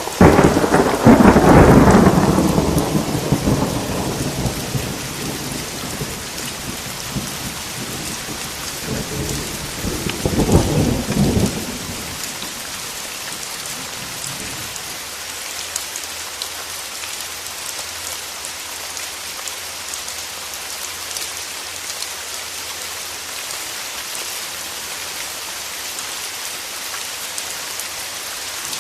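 Thunder over steady heavy rain: a loud clap just at the start that rolls away over about four seconds, then a second, shorter rumble about ten seconds in; after that only the even hiss of rain continues.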